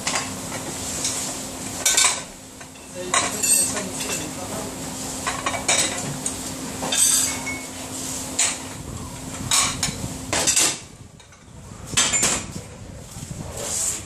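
Crockery clattering and clinking as dirty plates and cups are handled and stacked in a dish rack, a sharp clatter every second or so. Under it a steady low hum runs and cuts off about ten and a half seconds in.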